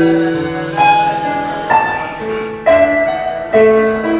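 Keyboard with a piano sound playing slow, sustained chords of a hymn tune. A new chord is struck about once a second, and each one fades as it is held.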